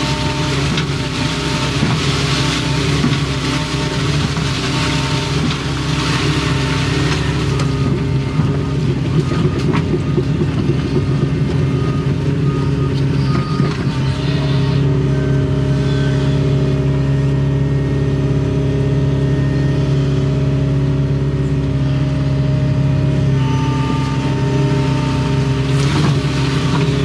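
Doosan excavator's diesel engine running steadily under load, with hydraulic whines that come and go and shift in pitch as the boom and bucket are worked. A rushing hiss rides over it for the first several seconds.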